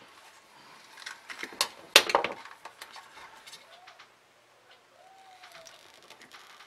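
Power supply wires and connectors being handled, then a wire stripper closing on a wire: light clicks and rattles, with a sharper click about two seconds in and fainter ticks after.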